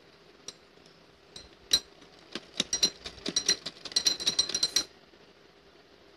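Bangles on a moving wrist clinking against each other: a quick irregular run of bright chinks, with a single click about half a second in, starting about one and a half seconds in and stopping about a second before the end.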